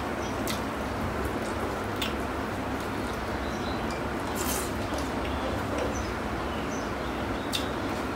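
A person eating rice by hand: fingers mixing rice and curry on a steel plate, and wet chewing, with a handful of small clicks scattered over a steady background hiss.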